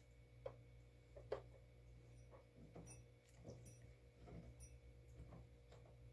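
Faint clicks and taps of hard plastic as a dog noses and pushes the sliding pieces of a plastic treat-puzzle toy, with two sharper clicks in the first second and a half and lighter ticks after.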